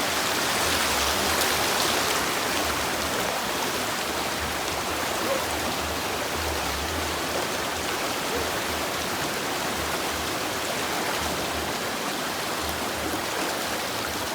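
River water rushing steadily over rocks and stones.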